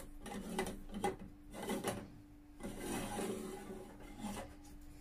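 Metal stovetop moka pot being screwed together: the upper chamber is twisted onto the base, its threads rasping and rubbing in two stretches.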